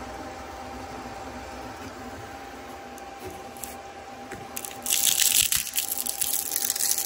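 3D printer running: a steady hum with a faint steady tone. About five seconds in, 3D-printed plastic parts are handled and pushed together, a loud crackling, scraping rub of plastic on plastic.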